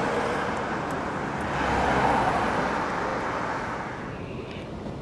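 Street traffic, with a car driving past that is loudest about two seconds in; the traffic noise then drops to a lower, steady hiss.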